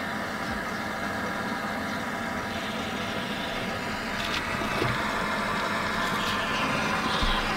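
The electric fuel lift pump of a Ford Super Duty 6.7 L Power Stroke diesel runs with the ignition on and the engine not started, a steady hum that grows a little louder about halfway through. It is priming the system, pushing diesel into freshly replaced, empty fuel filters.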